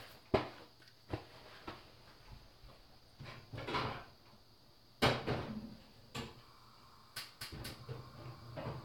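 Scattered clicks and knocks of small objects being handled close to the microphone, with a brief rustle a little before the middle and the loudest knock about five seconds in, followed by a quick run of three clicks.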